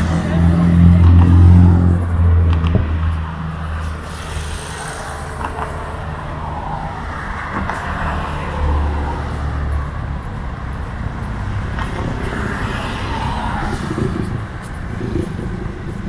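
A motor vehicle's engine rumbling close by, loudest in the first three seconds, with a second, shorter rumble about nine seconds in, over general street noise.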